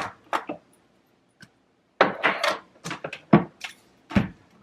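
Spice jars and food containers being handled and set down on a shelf: a few clicks, a pause, then a quick run of sharp knocks and clinks over the second half.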